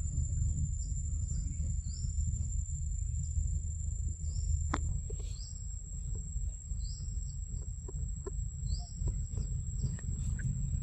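Forest ambience: a bird giving short rising chirps every second or so over a steady high-pitched insect whine, with a constant low rumble on the microphone and a single sharp click about halfway through.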